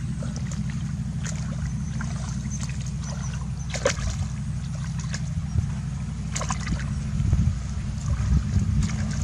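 Water splashing a few times over a steady low hum.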